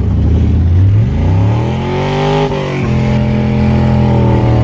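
Carbureted 4.8-litre V8 with headers in a 1999 Chevy S10, heard from inside the cab while accelerating. The revs climb, drop sharply at a manual upshift a little past halfway, then pull again in the next gear.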